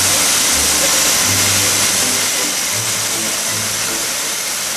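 Music from a radio, its bass notes heard one after another, under a steady loud hiss.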